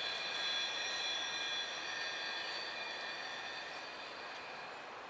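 Freight train cars rolling away on a curve, their steel wheels squealing against the rails in several steady high tones over a rumble, fading as the train recedes.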